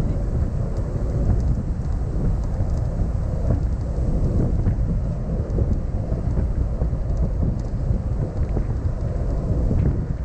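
Steady wind buffeting on the microphone and road rumble from a car driving at speed.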